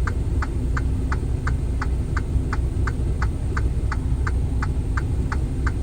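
Inside a semi-truck cab: the steady low rumble of the idling truck, with an even, rapid ticking of about three ticks a second running over it.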